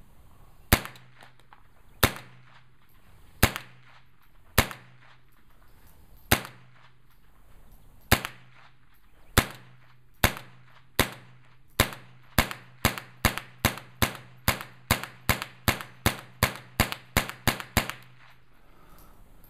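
AR-15 rifle firing .22 LR through a CMMG conversion bolt: about two dozen sharp shots, slow and spaced at first, then rapid fire at about three shots a second for the second half.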